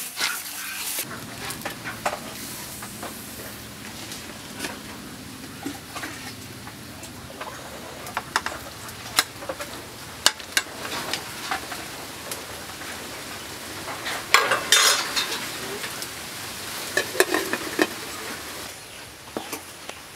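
Water boiling in an aluminium pot, with a metal ladle clicking and scraping against the pot and tray as pieces of pork-stuffed bitter gourd are slid into the water with splashes. There are louder bursts of clatter about two-thirds of the way through and again near the end.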